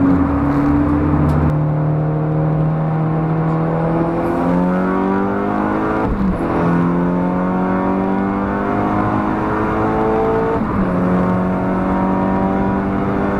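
Audi TT 8N's turbocharged 1.8-litre four-cylinder (1.8T with a BorgWarner EFR 6758 turbo) accelerating through the gears, heard from inside the cabin. The revs climb steadily, drop sharply at an upshift about six seconds in and again at one about ten and a half seconds in, then climb once more.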